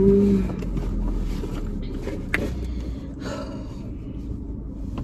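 Car engine idling in the cabin just after being started, its start-up revs settling during the first second. A brief steady tone sounds right at the start, a sharp click comes a little over two seconds in, and a short rustle follows around three seconds in.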